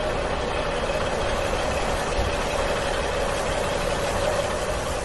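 Engine idling sound effect, a truck engine running steadily with a low rumble and a constant hum.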